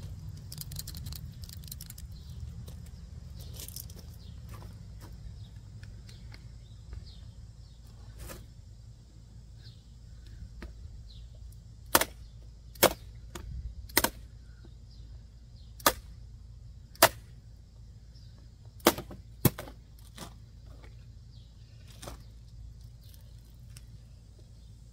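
About seven sharp cracks, irregularly spaced over roughly eight seconds in the second half, made by an out-the-front automatic knife striking a target in a cutting test. A steady low rumble runs underneath.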